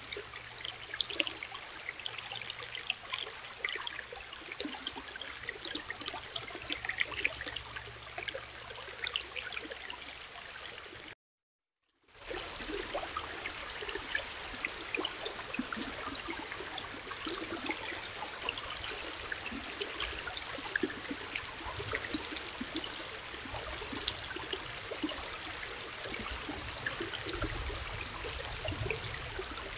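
Shallow stream running over rocks: a steady rush of trickling, splashing water. It breaks off for about a second near the middle, then comes back.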